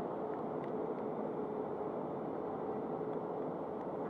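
Steady hum and rumble of a passenger train standing at a station platform, with a constant droning tone running through it.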